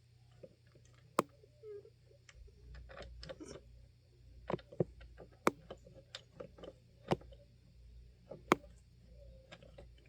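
Sharp plastic clicks and taps from a Honeywell fan's plastic front guard being handled and pressed into place, about five loud clicks among many lighter ticks, irregularly spaced.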